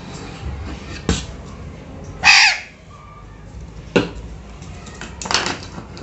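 Alexandrine parakeet giving one loud, harsh squawk a little over two seconds in, with a few sharp knocks around it as the plastic bottle is pushed about on the wooden surface.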